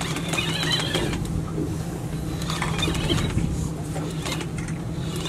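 Accurate Valiant 500 conventional fishing reel being cranked under heavy load from a big tuna, with clicks and brief high whines near the start and again about three seconds in. A steady low hum from the boat's engine runs underneath.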